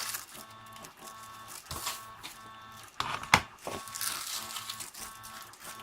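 3D printer running, its stepper motors giving a steady layered hum and whine. Scattered handling noises from the desk, with a sharp knock a little over three seconds in.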